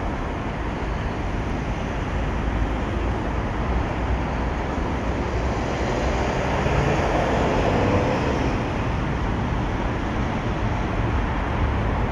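Steady road traffic noise, a low rumble that swells a little as a vehicle passes about seven seconds in. No gull calls are heard.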